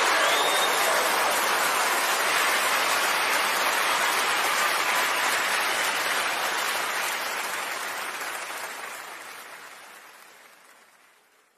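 Audience applauding after a joke's punchline, a steady clatter that fades out over the last few seconds.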